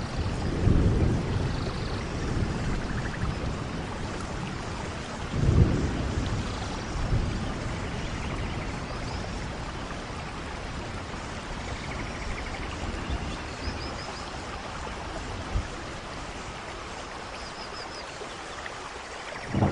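Steady rain falling, with low rolls of thunder swelling about a second in and again around five to six seconds in, and a short sharp thunder crack near the end.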